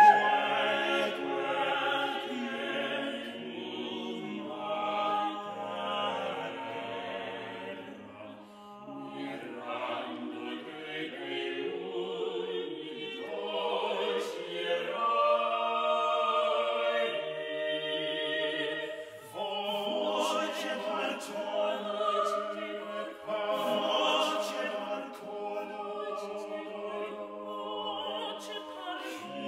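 Unaccompanied mixed vocal ensemble of eight voices, women and men, singing a Renaissance madrigal in several parts. The voices thin out and grow quieter about eight seconds in, and break off briefly about two-thirds through before coming back in together.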